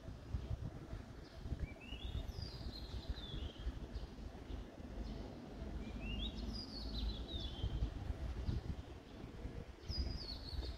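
A songbird singing short phrases of quick notes that climb and then step down in pitch, three times about four seconds apart, over a steady low rumble.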